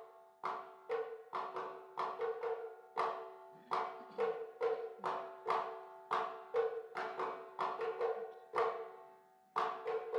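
Background music: a steady run of struck, quickly decaying notes, about two to three a second, over a held drone, with a brief pause near the end.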